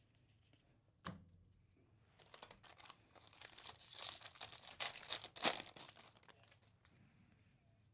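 Foil wrapper of a 2024 Topps Series 2 Baseball jumbo pack being torn open and crinkled by hand, a dense run of crackling that peaks with one loud crack and then dies away. A single sharp tap comes about a second in, before the tearing starts.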